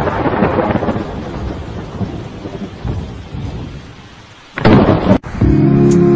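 Thunder rumbling over rain and slowly dying away, then a second loud thunderclap about four and a half seconds in. The storm sound cuts off abruptly and music begins near the end.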